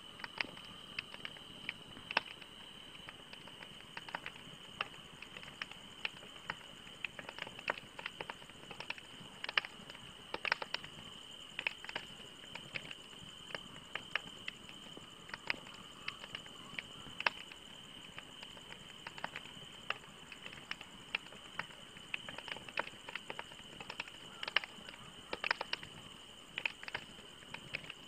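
Wood fire of burning logs crackling: irregular sharp pops and snaps, several a second, some louder than others, over a steady high-pitched hiss.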